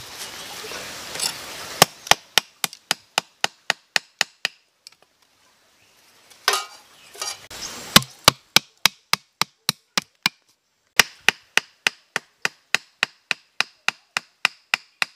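Sharp, evenly spaced knocks of a wooden stake being hammered into stony ground, about three blows a second, in three runs. A brief rustle comes between the first and second runs.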